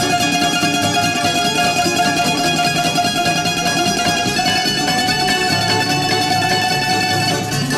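Traditional Greek syrtaki instrumental music led by a bouzouki, with melody notes held long over plucked string accompaniment.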